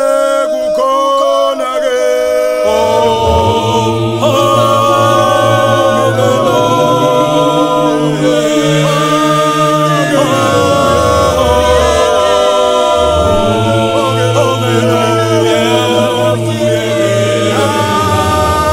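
Mixed-voice gospel choir singing a cappella in harmony, with long held chords. Higher voices start, and deep bass voices join about three seconds in.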